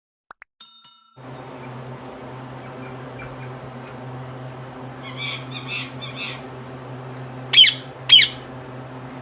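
Ringneck parakeets calling: a raspy three-part chatter midway, then two loud, shrill squawks in quick succession near the end, over a steady low hum.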